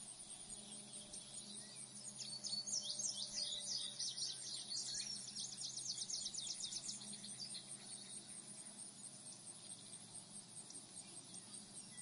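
Insects trilling steadily in a high, rapid pulse, with birds chirping and twittering over it from about two seconds in until about eight seconds in.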